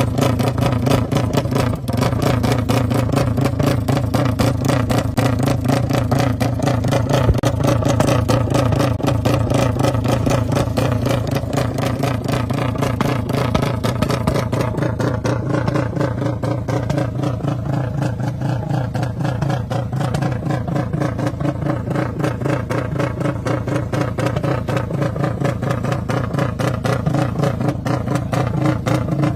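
Motorcycle engine with an open exhaust running steadily, a little softer through the middle and picking up again near the end.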